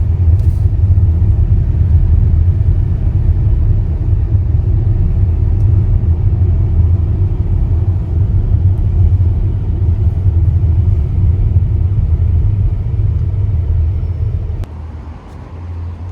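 Car driving, a loud steady low rumble of engine and road noise that drops off abruptly near the end.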